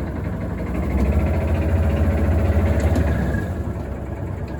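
Engine of the farm machine pushing a tractor, rising under load about a second in and easing back after about three seconds.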